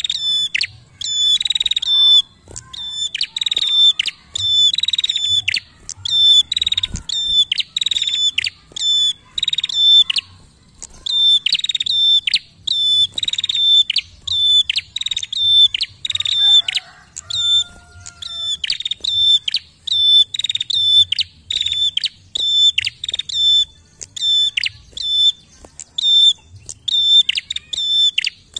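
Caged prenjak singing non-stop in full song ('gacor'): a long, loud run of short, sharp, high notes repeated about twice a second, without pause.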